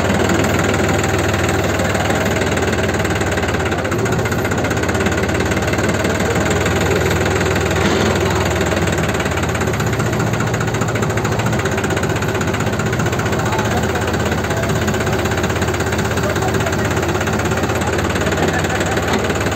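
New Holland 3630 Super Plus tractor's three-cylinder diesel engine running steadily, heard from the driver's seat.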